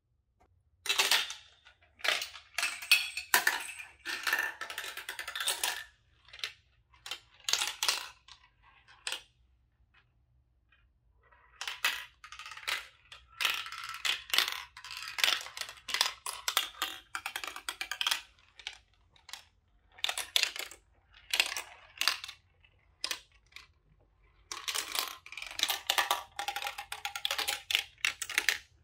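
Marbles clicking and rattling through a clear plastic marble run: dropping down tubes, rolling in funnels and clattering along the track pieces. The sound comes in busy clusters of quick clicks, starting about a second in, with a short lull around ten seconds in.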